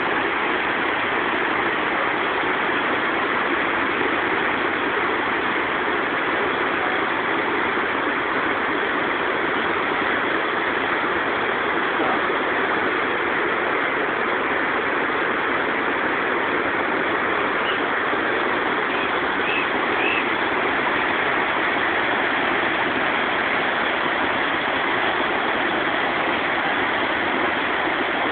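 Steady rushing roar of whitewater pouring over the rapids of the Potomac's Great Falls, an even, unbroken noise.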